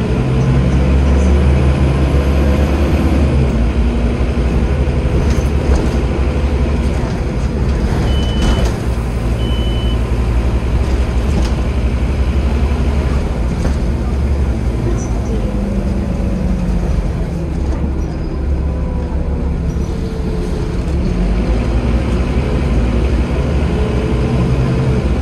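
Scania N230UD OmniCity double-decker bus's five-cylinder diesel engine heard from inside the lower deck, pulling away and running through its gears: the engine note climbs and then drops back at each gear change, several times over. Two short high beeps sound about eight and nine and a half seconds in.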